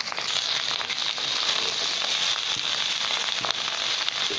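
Egg fried rice sizzling and crackling steadily in hot oil in a pan, stirred with a spatula toward the end.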